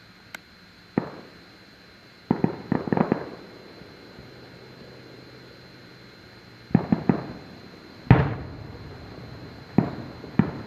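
Fireworks going off: single bangs and quick clusters of sharp pops, the loudest a boom about eight seconds in that fades out slowly.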